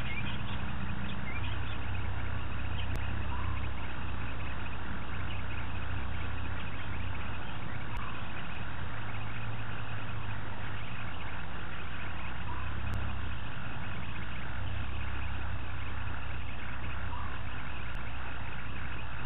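Engine of an open safari game-drive vehicle running with a steady low hum as it moves slowly past, over a dense chorus of night insects and frogs. A faint short call recurs every four to five seconds.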